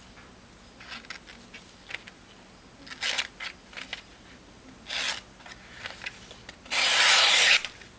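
A freshly sharpened Spyderco Endura knife blade slicing through paper: a few short cuts, then one longer, louder cut near the end.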